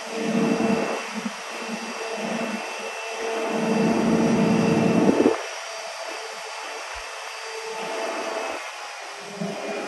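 Digger derrick working its boom hydraulics with the truck's 6.7L Cummins diesel running: a steady machine hum with a whine, louder in surges, that drops off sharply about five seconds in.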